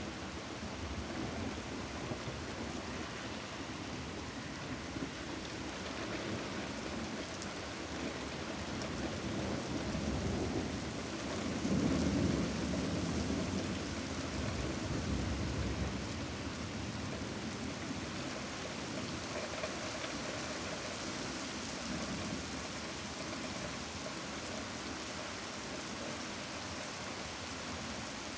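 Steady heavy rain falling, with a low rumble of thunder that swells and fades near the middle.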